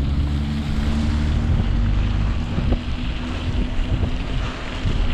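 Wind buffeting the camera microphone as a bicycle is ridden through a snowstorm, a steady rushing noise with a crackling low rumble.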